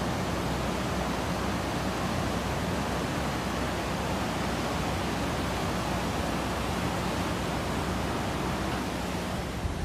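Steady, even rushing noise of fast-flowing floodwater.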